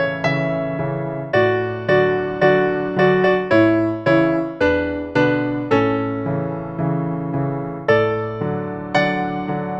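Piano playing a children's song accompaniment: a simple, bouncy line of chords and melody notes, each struck note fading away, about two notes a second.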